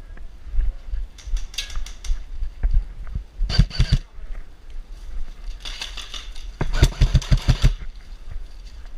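Airsoft rifle firing two quick bursts: about four shots a little after three and a half seconds in, then a longer burst of about ten shots near seven seconds, over a low rumble on the microphone.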